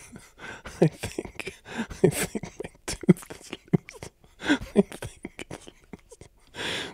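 A man stifling a laughing fit: short, uneven bursts of breathy giggles and snorts, a few a second, with mouth clicks in between.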